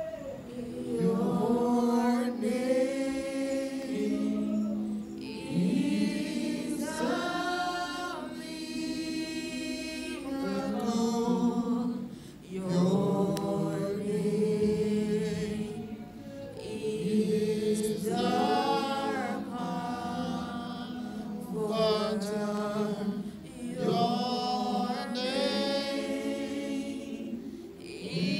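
A small group of worship singers singing a slow gospel song together into microphones, with long held notes in phrases of a few seconds.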